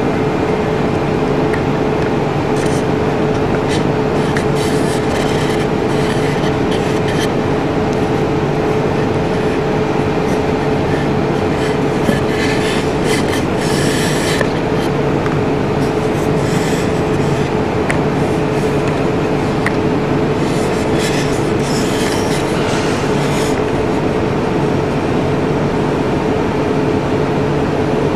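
Steady mechanical rushing noise with a constant hum, unchanging in level, with brief clusters of clicking about halfway through and again a little later.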